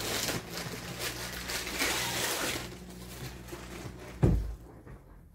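Plastic packaging crinkling and rustling as a riding whip is unwrapped, with many small crackles, then one dull thump about four seconds in.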